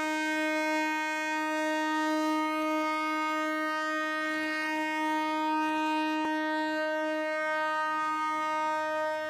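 Long, steady single-tone blast from the horn of an HXN5B diesel locomotive, held without a break as the train pulls out, with a brief click about six seconds in.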